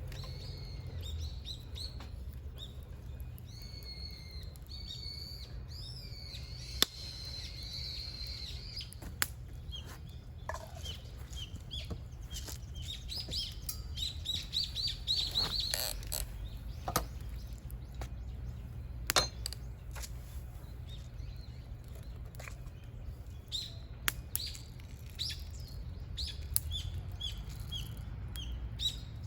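Wild birds chirping and calling on and off, with a few sharp clicks or snaps and a steady low rumble underneath.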